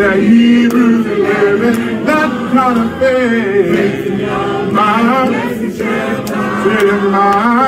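A group of voices singing a gospel song together a cappella, with no instruments.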